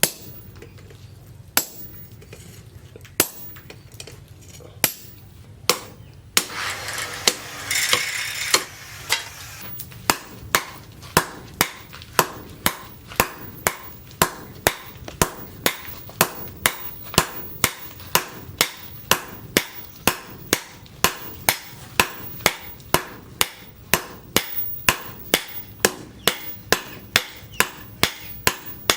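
Hammer blows on leaf-spring steel over an anvil: a few single strikes spaced well apart, a burst of noise lasting about three seconds, then steady forging at about two blows a second.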